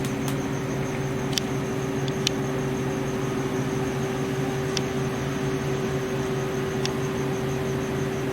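Steady fan hum of running computer equipment, with one fixed mid tone and a faint high whine. A few light clicks are scattered through it.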